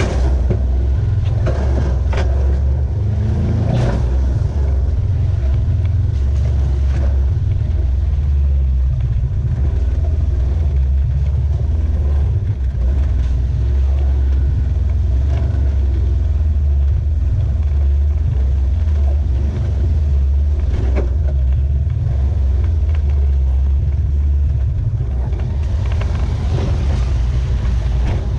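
Off-road vehicle engine running with a steady low rumble, with a few short knocks and clatters over it.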